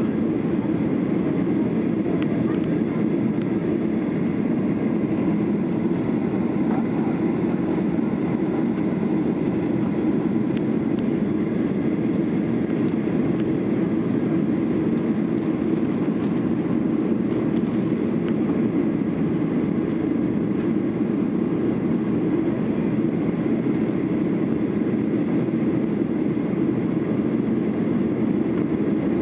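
Steady engine and airflow noise inside the cabin of a Boeing 737-800 in its climb after takeoff, from its CFM56-7B turbofans and the air rushing past the fuselage. It holds an even low pitch with no change throughout.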